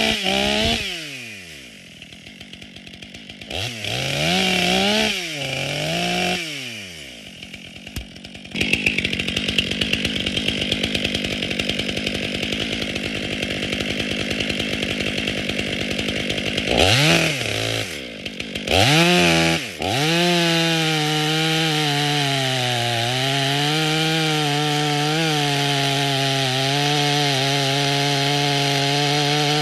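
STIHL MS 500i two-stroke chainsaw with electronic fuel injection, revved in several quick throttle blips with idle between, then run at full throttle with its bar in the trunk of a standing tree. Its engine note holds high and steady, dipping in pitch a couple of times.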